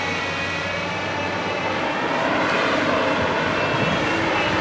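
JCB backhoe loader's diesel engine running steadily under work, getting a little louder about two seconds in.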